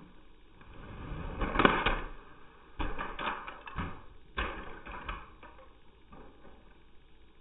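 A custom LEGO car rolling over carpet, then crashing loudly about a second and a half in, followed by a string of plastic knocks and rattles as it tumbles and bricks scatter, dying away by about five seconds in.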